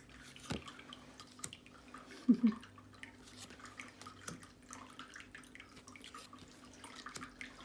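Tarot cards being handled and flipped through, with scattered light ticks and clicks of card stock. About two seconds in, a brief hum of a voice is the loudest sound.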